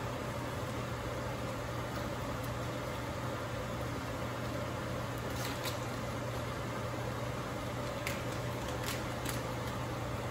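A steady low mechanical hum with a faint hiss, like a kitchen appliance or fan running. Over it, a few faint crinkles of a plastic bag as fish fillets are pulled out of it, mostly in the second half.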